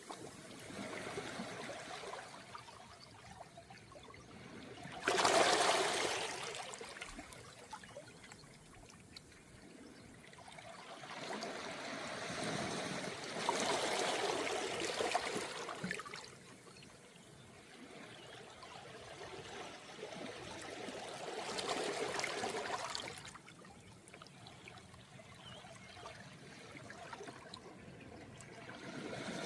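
Calm sea waves washing in on a round-pebble (mongdol) beach, one swell every seven or eight seconds, the first one breaking suddenly about five seconds in.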